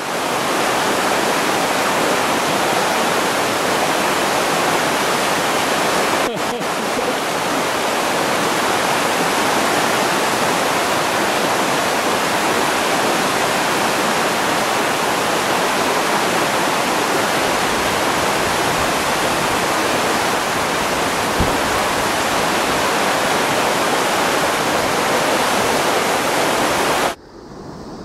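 Fast mountain stream rushing over rapids: a loud, steady wash of white water that stops abruptly near the end.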